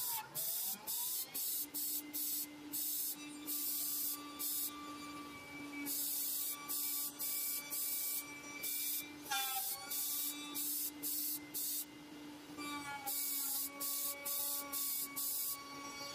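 CNC router spindle running with a steady whine while its end mill cuts closed-cell polyethylene foam, over a choppy hiss that cuts in and out several times a second. The pitch rises briefly near the start and again about halfway through.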